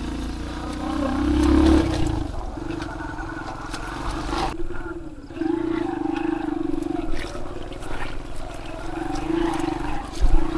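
Aveta Ranger motorcycle engine running under load, its pitch rising and falling with the throttle. It eases off briefly about five seconds in, then pulls again.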